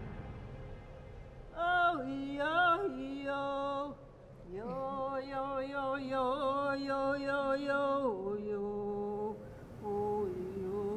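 Background music: a singing voice in long held notes, in two phrases, with a softer, lower held note between them.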